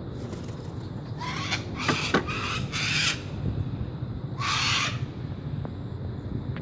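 Yellow-crested cockatoo screeching in flight: four rasping screeches in a quick run about a second in, then one more about four and a half seconds in.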